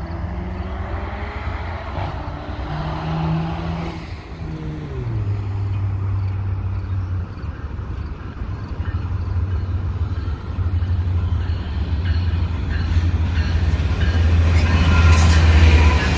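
Freight train approaching and starting to pass: a diesel locomotive's deep engine drone grows steadily louder, and the rumble of the train rolling on the rails builds near the end as the locomotive goes by.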